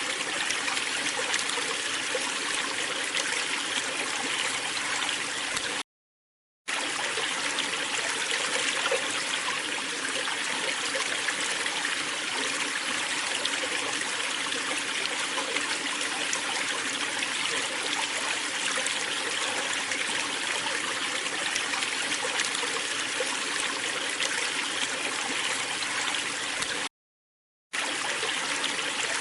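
Steady rush and splash of a waterfall, cut off by two brief dropouts of total silence, about six seconds in and near the end.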